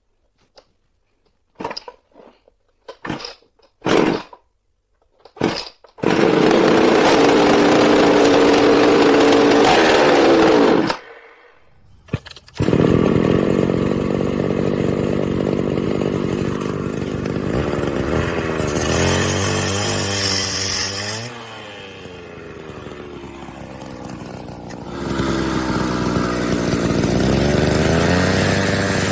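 Homelite XL-98 two-stroke cut-off saw being pull-started: several short pulls, then the engine catches about six seconds in and runs fast. It stops briefly near the middle, starts again, drops to a lower speed and revs up again near the end.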